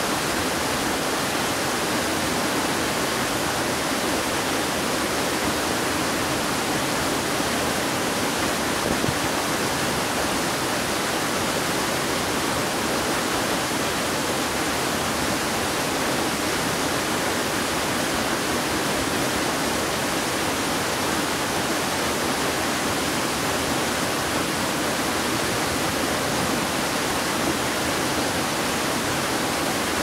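Falling water from two waterfalls, a tall fall dropping into a rock pool and a smaller cascade, blending into one steady, even rush.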